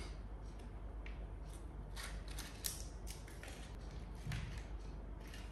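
Faint, scattered clicks and scrapes of plates and spoons as the meal is served, with one sharper click near the middle and a soft thump about four seconds in.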